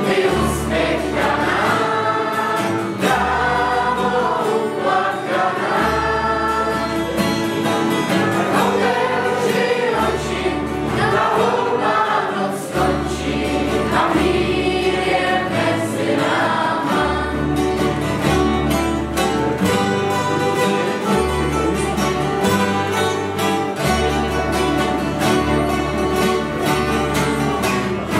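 Ensemble of many acoustic guitars strumming chords over a bass line, with a group of voices singing together; the singing stands out most in the first half.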